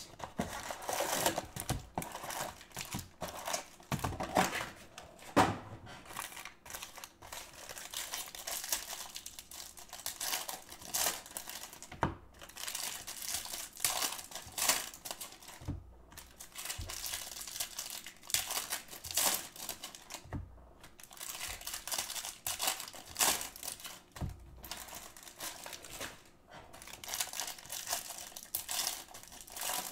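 Foil trading-card pack wrappers crinkling and tearing as packs are handled and ripped open, with cards shuffled between; an irregular run of rustles and crackles.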